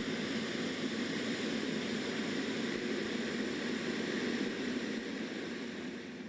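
Turboprop engine of NASA's Ikhana, a Predator B unmanned aircraft, running steadily on the ground: a steady hiss with faint steady tones through it.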